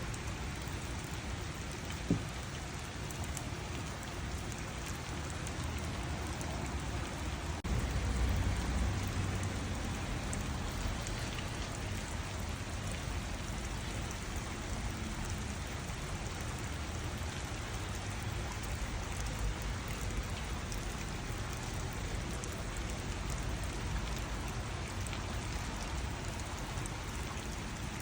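Steady rain falling and pattering on surfaces. There is a single sharp tick about two seconds in, and a low rumble swells for a couple of seconds about eight seconds in.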